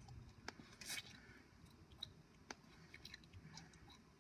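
Near silence with a few faint scattered clicks and a brief scratchy rustle about a second in.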